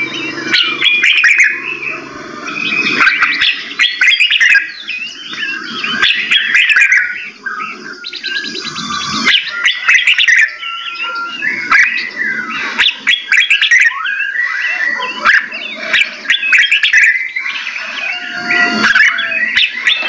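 Several caged songbirds singing and calling at once: a dense, unbroken chorus of overlapping chirps, whistles and trills, with lower-pitched calls mixed in at times.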